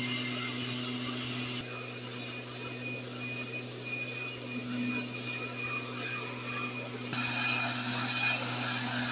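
Motorized backpack mist-blower sprayer running steadily: a two-stroke engine drone under a high fan hiss. The level drops sharply about one and a half seconds in and jumps back up about seven seconds in.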